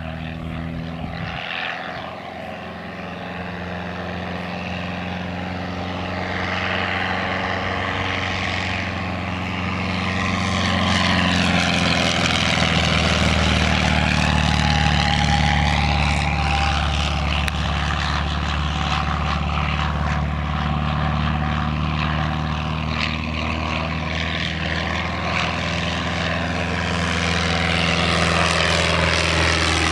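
Fokker Dr.I triplane replica's propeller engine running steadily in flight. It grows louder as the plane passes close overhead about a third of the way in, eases off, then builds again near the end as it comes back low.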